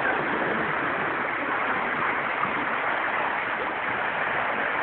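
Shallow river rushing over stones: a steady, even water noise.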